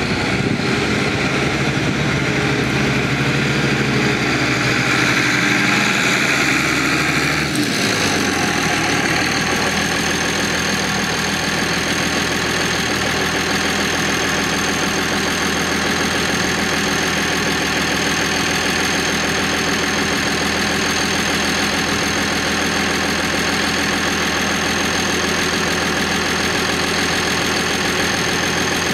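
International Harvester 1086 tractor's turbocharged six-cylinder diesel running. About seven and a half seconds in the sound changes abruptly, and from then on the engine idles steadily with a high, thin whine on top.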